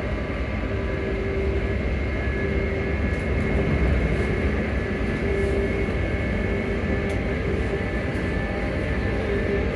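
Inside a ScotRail Class 334 electric multiple unit on the move: a steady rumble of wheels on rail under a steady whine from the traction motors, holding an even pitch.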